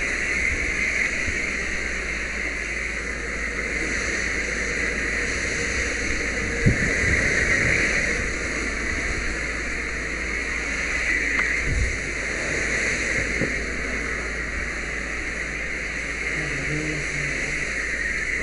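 Fire hose nozzle spraying water, a steady rushing hiss, with a single sharp knock about seven seconds in.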